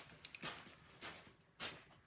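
A handful of short rustling and scraping handling sounds, about four brief bursts, the loudest near the middle and near the end.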